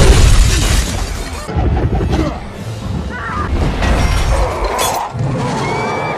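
Film action soundtrack: a loud explosion and its blast, heaviest in the first second and a half, mixed with a music score that carries on through the rest.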